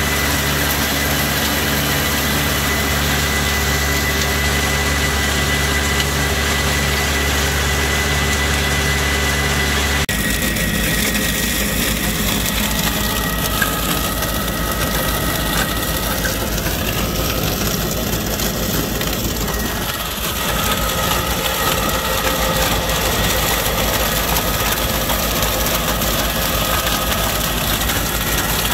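Tractor engine running steadily while driving a tractor-mounted garlic and onion stalk cutter through the garlic rows. The sound shifts abruptly about ten seconds in and stays steady after.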